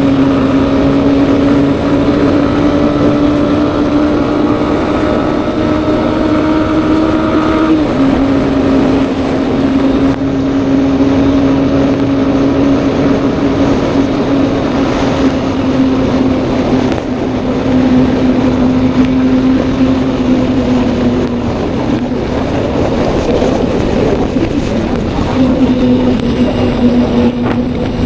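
Honda motorcycle engine cruising under steady throttle, its note climbing slowly, then dropping abruptly about eight seconds in at a gear change before holding steady again. Wind rushes over the microphone.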